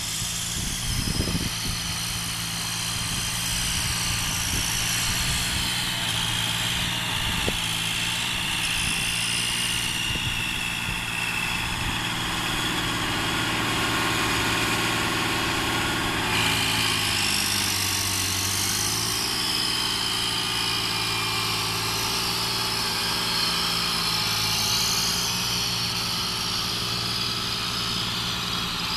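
Diesel engines of a Cat D6K2 crawler dozer and a John Deere tractor pulling a scraper pan, running steadily under load while moving dirt, with a change in the engine note a little over halfway through.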